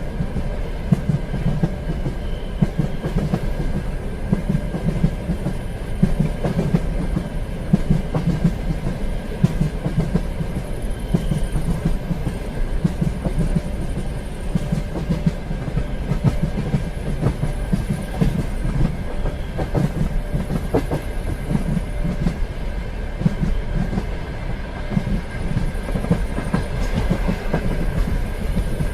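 Train running steadily along the rails: a continuous low rumble with a rhythmic clickety-clack of the wheels over the rail joints, and a faint steady whine above it.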